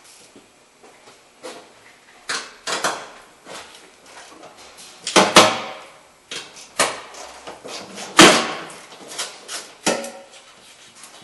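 Hand ratchet and socket on the front strut-mount nuts: a string of separate metallic clinks and knocks, with two loud ringing metal knocks about five and eight seconds in.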